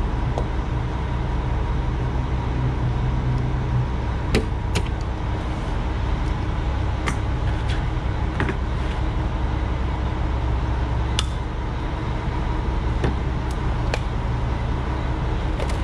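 Heavy diesel truck engine idling with a steady low hum, with a scattering of short sharp clicks and taps as a hard plastic window screen and a utility knife are handled.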